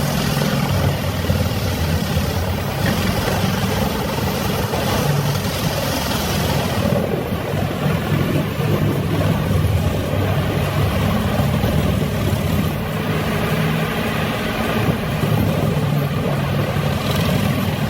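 Heavy machine's diesel engine running steadily under load, its deep hum mixed with a dense grinding and crashing noise of material being processed; the sound changes character about seven seconds in.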